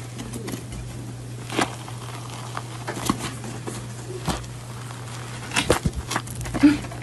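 Crisp, irregular crackles and snaps of a dry, brittle brown material being broken and torn apart by hand, thickest in the last couple of seconds, over a steady low hum.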